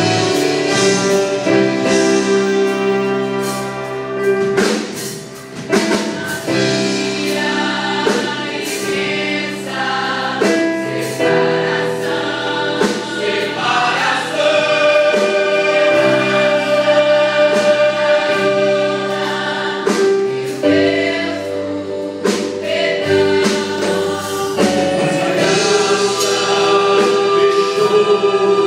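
Youth choir singing a gospel hymn in Portuguese with instrumental backing, the voices holding long sustained notes over a steady beat.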